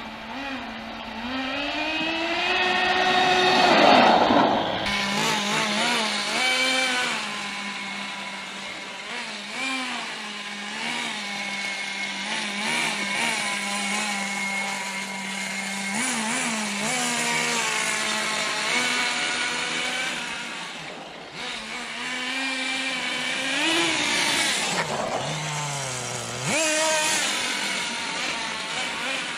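Thunder Tiger Pro-18BXS nitro engine of a 1/10 RC monster truck running at a steady high note and revving up and down repeatedly as the truck is driven; the biggest rev comes about four seconds in.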